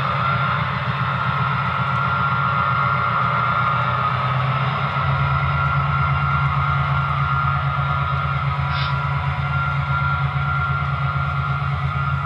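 Sound-equipped HO-scale EMD F7 diesel locomotives running, with a deep bass engine rumble from the Rolling Thunder receiver under a steady higher engine tone. The bass shifts about five seconds in. The rumble is clear and unbroken, with the units set to separate Rolling Thunder channels so they no longer fight for control.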